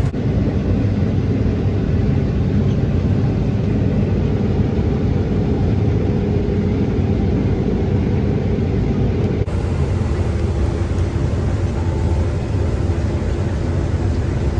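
New Holland CX8.90 combine harvester running steadily at working speed, heard from inside its cab. For the first part its unloading auger is pouring grain into a trailer; about nine and a half seconds in the sound changes abruptly to the combine cutting and threshing wheat.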